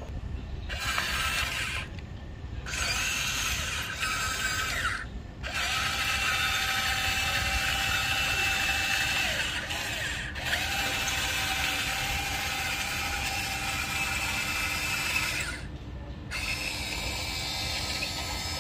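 Electric motors and gearboxes of a Huina RC excavator whining as it drives on its tracks and turns. The whine runs in several stretches, broken by short pauses about 2, 5 and 16 seconds in.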